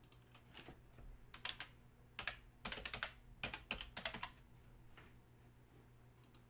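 Typing on a computer keyboard: several quick runs of key clicks through the middle few seconds, over a faint steady hum.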